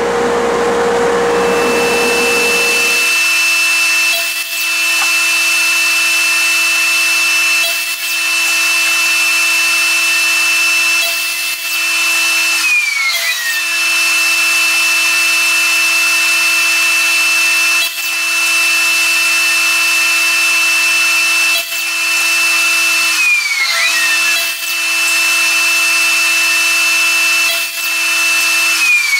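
DeWalt compound miter saw cross-cutting pine boards: its motor runs with a steady whine in three long stretches, and each time the trigger is released the pitch falls as the blade spins down, about twelve seconds in, about twenty-three seconds in and at the very end.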